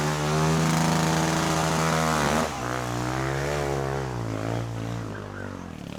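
An engine running with a steady drone that drops in pitch about two and a half seconds in, then rises and falls slightly.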